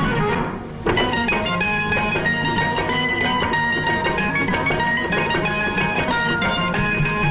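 Instrumental interlude of a Tamil film song: a plucked-string melody over a light drum beat. The music drops back briefly just after the start and the full ensemble comes back in about a second in.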